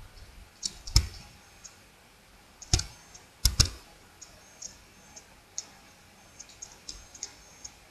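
Clicks of a computer mouse and keyboard: three louder clicks in the first few seconds, then a run of lighter, quicker ticks.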